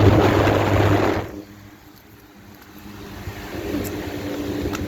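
Air conditioning condensing units running: loud rushing fan air over a steady low motor hum, which drops away sharply about a second in and leaves a quieter steady hum that slowly grows again.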